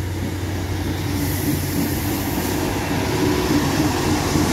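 Diesel railcar passing close by, its engine droning steadily over the rumble of wheels on the rails, growing louder as it nears.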